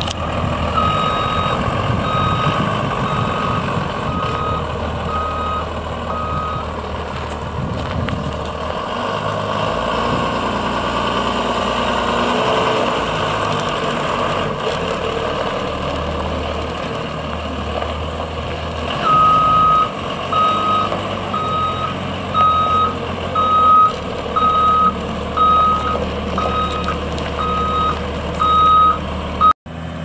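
A school bus's backup alarm beeps steadily, about one and a half to two times a second, over the running Cummins ISB 5.9 L six-cylinder diesel. The beeping stops after about six seconds while the engine keeps running, then starts again about 19 seconds in and carries on nearly to the end.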